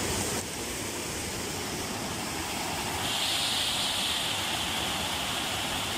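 Water gushing out of a sluice gate in a steady rush, turning brighter and hissier about three seconds in.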